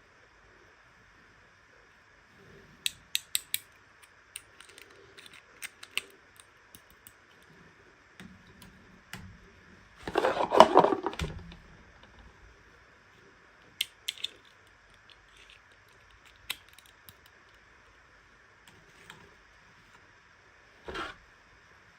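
Hands unpacking small plastic miniature toys: scattered sharp clicks and taps, including a quick run of four, and a louder rustling burst about ten seconds in.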